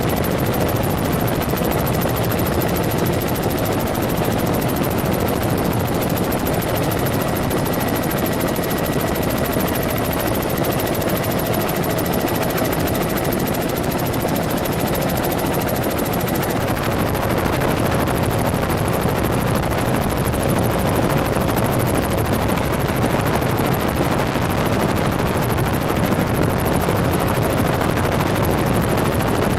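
Helicopter's turbine engine and rotor running steadily in flight, heard from inside the cabin as a loud, constant drone with a faint steady whine; the tone shifts slightly a little past halfway.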